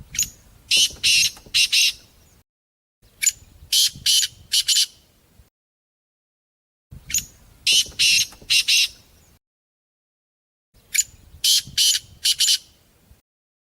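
Partridge (teetar) calling: four bursts, each a short run of loud, high notes lasting about two seconds. The bursts come roughly every four seconds, with silence between them.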